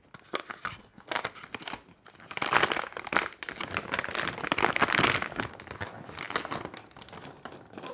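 Plastic wrapping crinkling and rustling as filament spools are handled, with scattered light clicks and knocks; the crinkling is busiest in the middle of the stretch.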